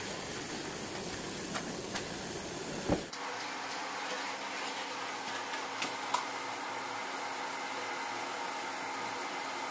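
Steady background hiss with a few soft thumps as bedding is handled on a bed. About three seconds in it changes abruptly to a thinner, even hiss with a faint hum and a couple of light clicks.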